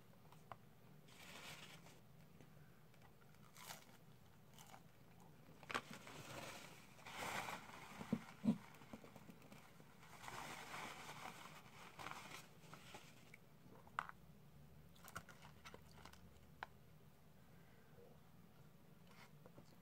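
Close-up eating sounds: chewing and crunching of fast-food fries and chicken nuggets, faint, with scattered short clicks. About ten seconds in comes a stretch of paper rustling as a napkin is wiped across the mouth.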